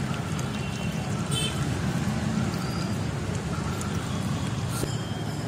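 Sour khatai liquid poured through a metal sieve, splashing and trickling steadily into a steel bowl of spiced water, over a low street-traffic hum.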